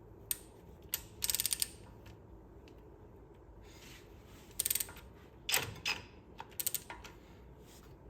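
Hand ratchet wrench clicking in several short bursts while backing out the 10 mm hub bolts.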